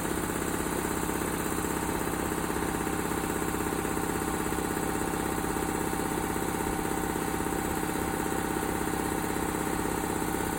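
A 5–7.5 hp CA1 series electrically driven industrial air compressor running steadily: an even, rapidly pulsing machine hum with a steady tone.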